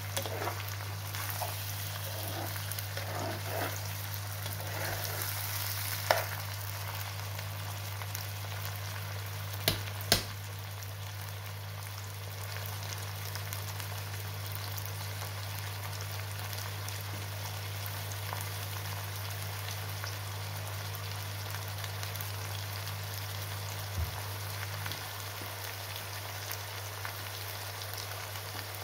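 Diced lamb liver and chopped onion sizzling steadily in oil in a frying pan, over a constant low hum. A few sharp knocks stand out, one about six seconds in, two close together around ten seconds, and one near the end.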